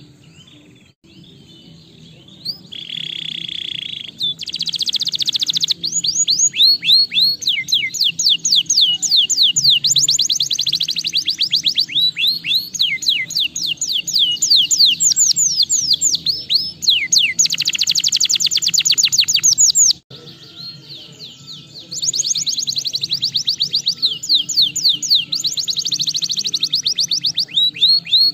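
Domestic canary singing a long, loud song of fast trills: runs of rapidly repeated sweeping notes that change from one tour to the next, dropping off briefly about two-thirds of the way through before starting up again.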